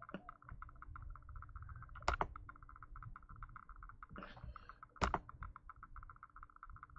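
Two sharp computer mouse clicks, about two and five seconds in, over a faint, fast, even ticking and a low hum.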